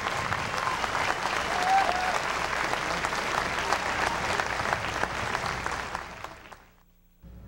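Large crowd applauding, a dense steady clatter of many hands that dies away about six seconds in, leaving near silence.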